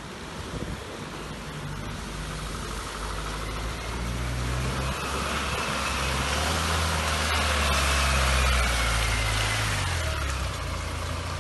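Mahindra Thar 4x4's engine pulling the jeep out of a stream and up a mud bank, growing louder as it approaches and passes close by. A whine falls in pitch as it goes past.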